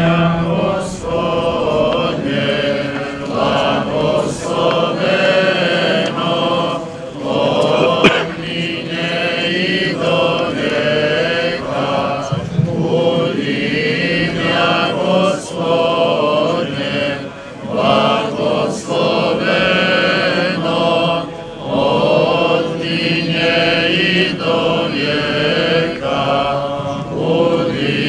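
Orthodox clergy chanting a liturgical hymn together, sung in long phrases with short pauses between them, during the blessing of the slava cake.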